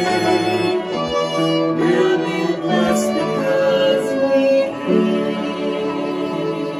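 A man and a girl singing together, accompanied by bowed violin and cello.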